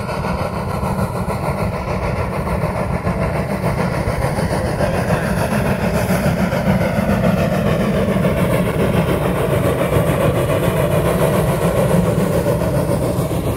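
Norfolk and Western #475, a 4-8-0 steam locomotive, running past with its train of passenger cars: a steady heavy rumble that grows louder as it draws near.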